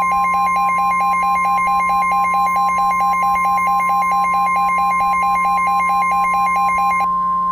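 Simulated NOAA Weather Radio warning alarm tone: a steady high tone near 1050 Hz, sounded ahead of an emergency message. A rapidly pulsing, buzzy second alarm tone is layered over it and stops about seven seconds in, while the steady tone carries on. A low steady hum runs underneath.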